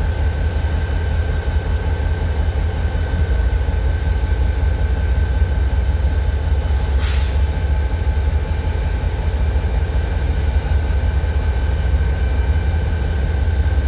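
Freight train with CSX diesel locomotives, a steady deep rumble with two thin, steady high-pitched whines over it. A short hiss comes about seven seconds in.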